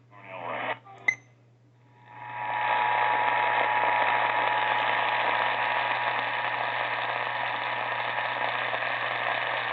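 Emergency alert attention tone received over the radio: after a couple of clicks and a brief scrap of radio sound, a steady alert tone just under 1 kHz comes up about two seconds in, buried in loud, steady radio static.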